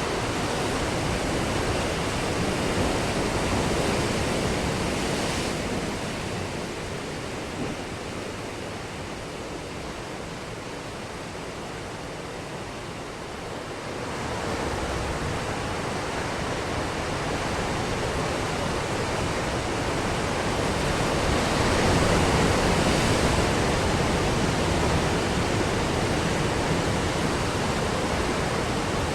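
Ocean surf washing on a beach: a continuous rush of breaking waves that swells and ebbs, easing off around a quarter of the way in and building to its loudest about three quarters of the way through.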